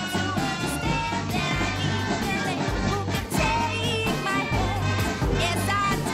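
Music with a singing voice, playing without a break.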